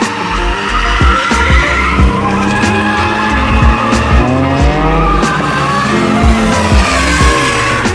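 Mazda RX-8's two-rotor rotary engine revving up and down while drifting, with tyres squealing and skidding.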